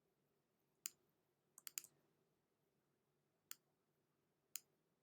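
Sharp computer mouse clicks over near silence, made while working the clone tool: one about a second in, a quick run of three or four just before two seconds, then two single clicks further on.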